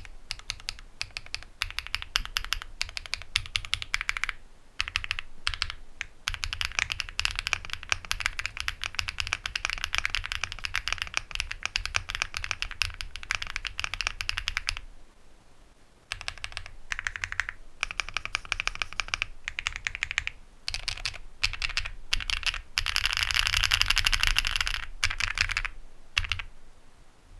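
Fast typing on an Akko MOD007 v3 mechanical keyboard with factory-lubed HMX Xinhai linear switches, an FR4 plate and Cherry-profile PBT keycaps: quick runs of keystrokes, a brief pause midway, and a dense flurry of keypresses near the end.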